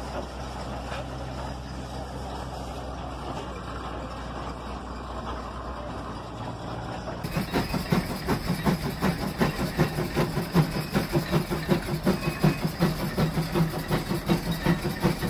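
Case steam road locomotive (steam traction engine) working. For the first seven seconds it gives a steady, quieter running sound. Then come loud, rhythmic exhaust chuffs, about three a second.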